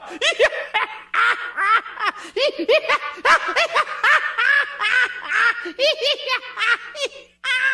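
High-pitched giggling: a long run of quick laughs that cuts off suddenly near the end.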